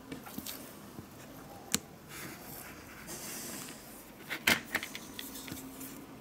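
Handling noise on a workbench: a utility knife and cut pieces of a silicone mould make a few sharp clicks and taps, the loudest cluster about four and a half seconds in, with soft scraping and rustling between.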